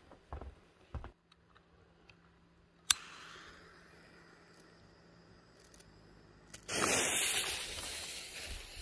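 A lighter clicks once and its flame hisses as a fuse is lit. About four seconds later the silver firework fountain ignites with a sudden, loud hiss of spraying sparks that eases off slightly.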